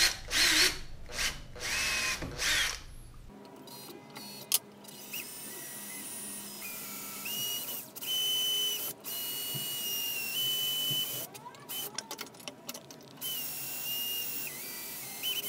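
Cordless drill boring a hole in an aluminium plate, the pilot hole for an M5 tap. The motor whines in several runs, its pitch stepping up and down with the trigger and briefly stopping between runs.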